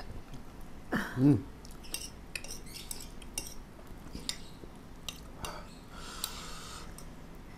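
Spoon and dishes clinking now and then during a meal, with a short vocal sound, a hum or exclamation, about a second in.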